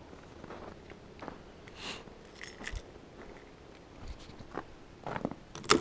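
Footsteps crunching in fresh snow, soft and irregular, with a few sharper, louder clicks and knocks near the end.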